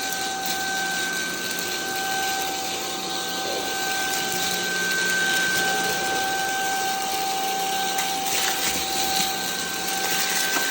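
Cordless stick vacuum cleaner running steadily on its medium power setting: a high motor whine over a rush of air. A brief rattle comes about eight seconds in as coffee beans are sucked up.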